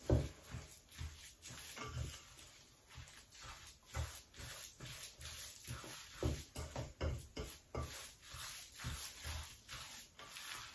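Long curved mixing spatula stirring a thick tuna, surimi and mayonnaise mixture in a metal bowl, making irregular dull knocks and scrapes against the bowl about once or twice a second.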